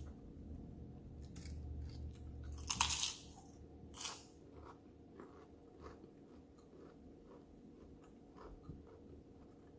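A person eating close to the microphone: a loud crunchy bite about three seconds in and another about a second later, then quieter chewing with small wet clicks.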